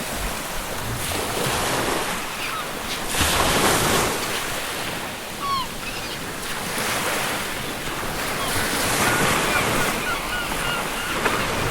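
Ocean surf washing ashore in swelling surges, with seagulls calling over it: short, scattered calls, several in quick succession near the end.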